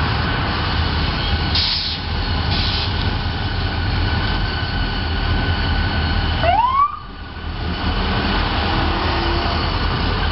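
Union Pacific diesel locomotives and freight cars rolling past: a steady low engine rumble with rail and wheel noise. About six and a half seconds in there is a short rising whine, then the sound drops off briefly.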